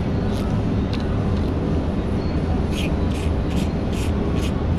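Hand ratchet wrench clicking as it is worked on a bolt, the clicks coming quicker, about four a second, in the second half, over a steady low hum.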